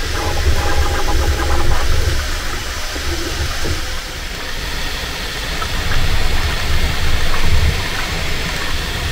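Bambu Lab 3D printers running mid-print: a steady hiss over a low rumble, with faint whining tones that shift in pitch in the first two seconds.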